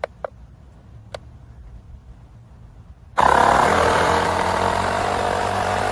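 Small electric air compressor of a UIBI X5 portable jump starter inflating a car tire. It starts abruptly about three seconds in and runs loudly and steadily. A few short clicks from its buttons come before it.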